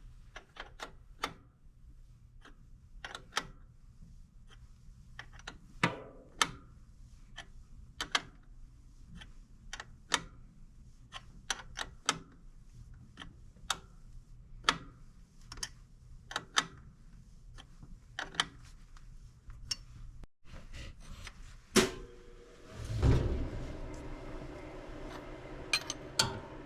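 Hand tools working on the fittings of a flathead V8 engine: irregular sharp clicks and taps of metal on metal as fuel lines and a bracket are undone. Near the end, a louder metallic clank that rings briefly.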